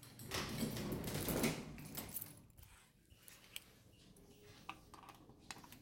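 A glass post-office entrance door being pushed open, with a brief rush of noise lasting about two seconds, followed by a few faint metallic clicks of keys near the PO-box locks.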